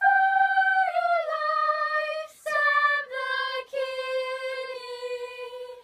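Children's choir singing in unison without accompaniment: long held notes stepping slowly downward, with short breaks between some of them.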